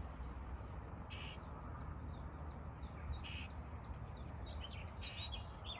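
Common whitethroat calling agitatedly near its fledged brood: short harsh buzzy calls repeated about every two seconds, with quick high chirps growing busier toward the end. A low rumble runs underneath.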